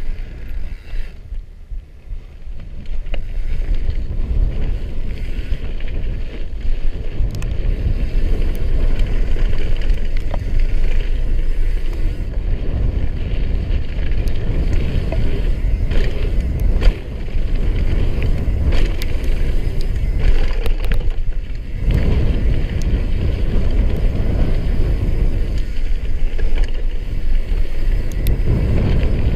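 Wind rushing over the action camera's microphone, with tyre noise from a downhill mountain bike rolling fast on a gravel trail. Scattered clicks and rattles come from stones and the bike, and the sound is quieter for a stretch about one to three seconds in.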